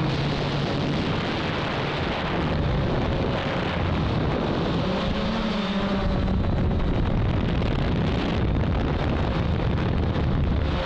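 Hexacopter's electric motors and propellers droning continuously, heard from the onboard camera, with wind rushing over the microphone; the motor pitch wavers slightly up and down.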